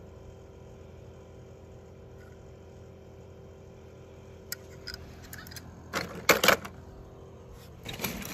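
Toy cars being handled: a few light clicks, then a louder clatter of hard toys knocking together about six seconds in and again near the end, over a low steady hum.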